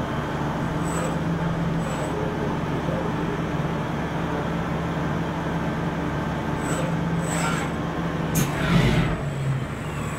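Spinner U-620 CNC machining centre running with a steady hum, with a few brief high squeaks and a short louder noisy stretch about eight and a half seconds in.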